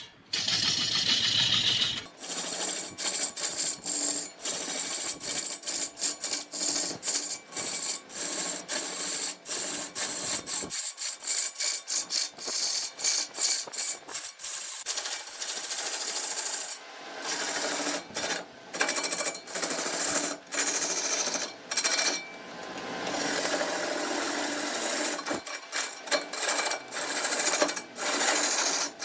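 Wood being cut on a lathe, a tool scraping and chattering against the spinning wood in short, irregular bursts with brief breaks. The character of the cutting changes about two seconds in and again near the middle.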